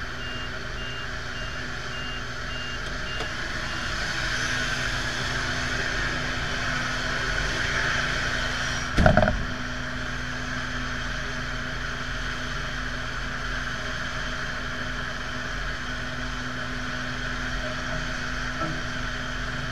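A pushback tug's reversing beeper sounds in even pulses for the first few seconds over a steady engine hum, then stops. About nine seconds in there is a single loud metal clank as the crew work the towbar coupling at the airliner's nose gear.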